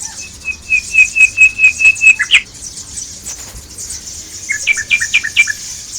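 Small songbirds calling from a tree: a quick run of about ten short, repeated chirps, then a shorter burst of four or five chirps, over a steady high-pitched hiss.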